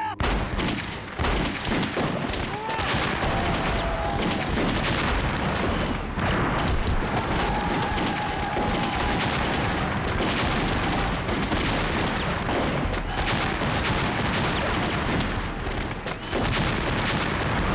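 Sustained battle gunfire: a dense, continuous fusillade of rifle and machine-gun shots.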